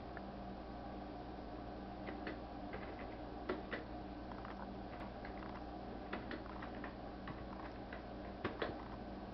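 Stomach gurgling: irregular small pops and squelches over a steady low hum, which the uploader puts down to a stomach ulcer.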